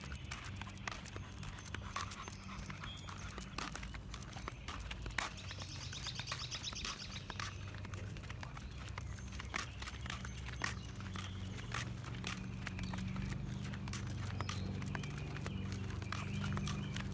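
Footsteps and the clinking of a dog's chain collar as an American bully is walked on a leash along a concrete sidewalk: many irregular sharp clicks, over a low steady hum that grows a little louder in the second half.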